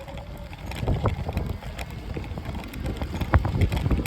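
Wind buffeting the microphone, with a steady low rumble and irregular knocks and rattles throughout.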